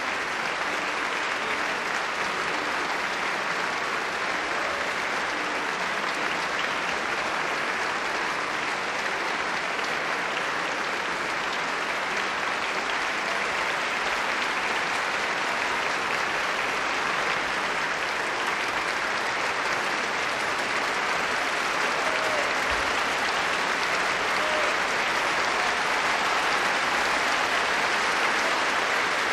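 Concert audience and orchestra players applauding steadily, the clapping growing slightly louder near the end.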